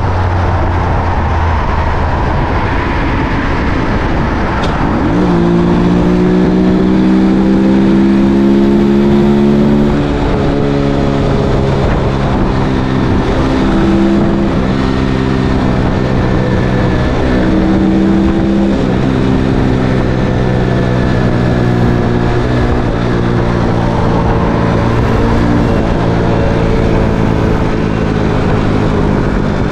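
Mondial SFC 50 cc scooter engine running under way, with wind rushing over the microphone. About five seconds in, the throttle opens and the engine note climbs quickly. It then holds a steady cruising note with small rises and dips.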